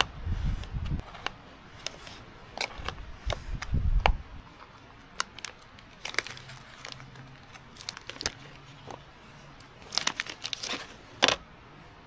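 A knife clicking and scraping on a plate as sausage is sliced, then a plastic cheese wrapper crinkling and tearing as it is cut open. A low rumble runs through the first four seconds, and a cluster of sharper clicks comes near the end, the loudest just before it ends.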